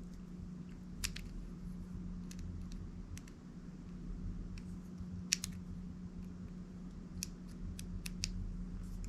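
Irregular small metallic clicks and ticks, about a dozen, from a tiny screwdriver working the small mounting screws of a phono cartridge into a turntable headshell, over a steady low hum.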